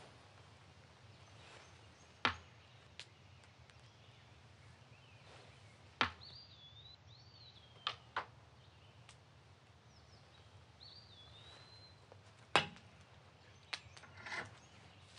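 Quiet rural outdoor ambience: a low steady rumble with sharp, irregularly spaced knocks, three of them louder than the rest, and a few high bird chirps.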